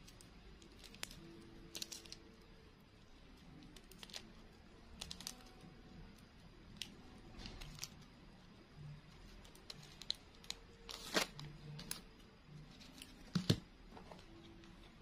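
Thin green plastic-bag strip crinkling and crackling faintly as it is wound around a wire flower stem, in small irregular ticks, louder twice near the end.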